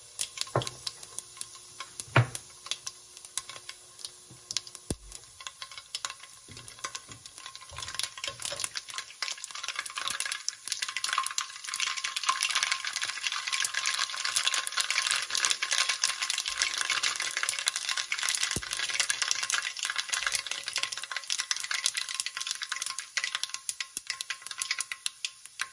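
Cumin and mustard seeds sizzling and crackling in hot oil for a tadka. The crackle grows denser from about ten seconds in, with one sharp click about two seconds in.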